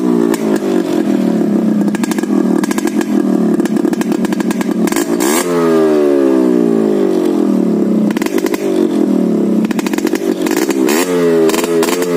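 Yamaha RX100 two-stroke single-cylinder motorcycle running through a modified old muffler. It holds a steady note at first, then from about halfway it is revved up and let fall again several times, with occasional sharp cracks.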